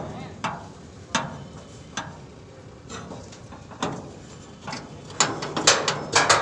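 Sharp metallic clicks and knocks of wheel-securing hardware, a belt and a steel stopper, being fitted against a car's tyre on a car-carrier truck's perforated steel deck. A few come singly, then a quick cluster near the end.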